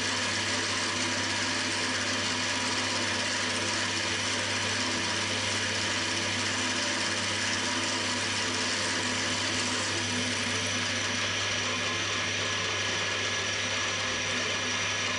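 Cormak ZX 7045 mill-drill running steadily under load as its spindle tool cuts into an aluminium plate: a steady hum with several steady whining tones over it.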